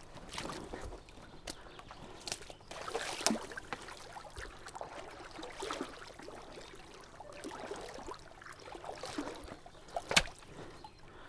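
A person wading step by step through a shallow river, with water sloshing around the legs. There is one sharp knock near the end.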